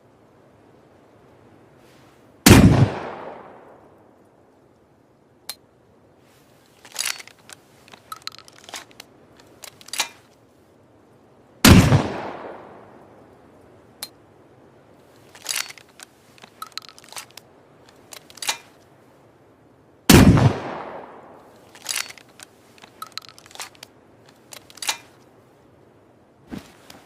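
Three shots from a makeshift single-shot water-pipe shotgun, about nine seconds apart, each a loud blast with a short echoing tail. Between shots come clusters of sharp clicks and knocks as the gun is handled and reloaded.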